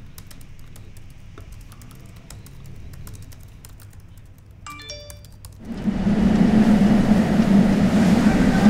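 Laptop keyboard typing, a few scattered key clicks in a quiet room. About five seconds in comes a quick run of bell-like chime tones, then loud droning music with a strong low hum starts and holds.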